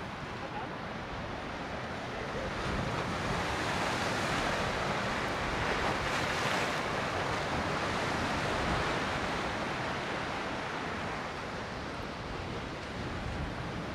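Baltic Sea surf washing against the concrete blocks and boulders of a breakwater pier: a steady rush that swells over several seconds and then eases off.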